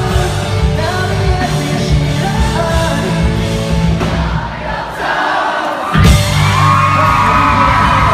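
Pop-punk band playing with a lead singer: the bass and drums drop away for about a second and a half near the middle, then the full band comes back in with a crash under a long held sung note.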